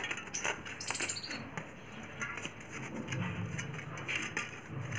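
Light clicks and rustling as a replacement voice coil with its corrugated spider is handled and fitted into a 15-inch speaker frame. Two short, high squeaks sound in the first second and a half, the first one steady and the second falling in pitch.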